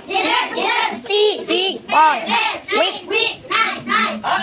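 A class of children reading words aloud in unison, in a sing-song group chant, syllable after syllable at an even pace.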